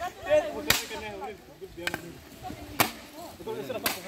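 Hammer nailing two planks of a wooden cross together: four sharp blows about a second apart, with voices talking in between.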